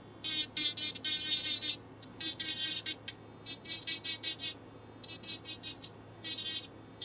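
Serio electric nail drill with a thin bit grinding the cuticle and hardened skin along a toenail, a high-pitched buzzing rasp that comes in a string of short bursts with brief gaps as the bit touches and lifts off.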